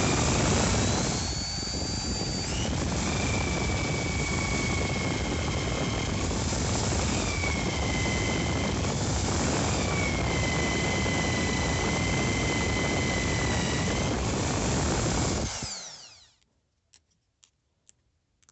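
Corded electric drill running, boring into a wooden block. Its steady motor whine dips in pitch several times as it takes load. About fifteen seconds in it switches off and winds down with a falling whine, followed by a few faint clicks.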